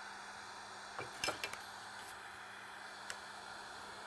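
Light metal clinks of tools being handled at a wood lathe: a cluster of taps a little over a second in and one more about three seconds in, over a steady machine hum.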